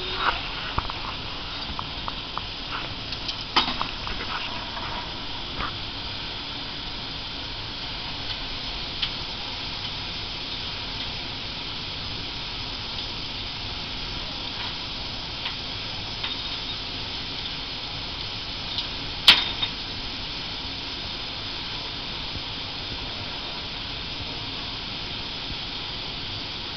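Steady hissing background noise with a few short clicks or knocks, the loudest and sharpest about nineteen seconds in.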